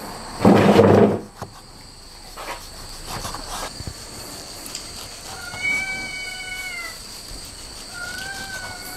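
A cat meowing twice: one long, slightly falling meow past the middle and a shorter one near the end. Steady insect trilling runs underneath. A loud, brief noisy sound comes in the first second, and a cleaver taps a few times on a wooden chopping block while slicing cooked beef.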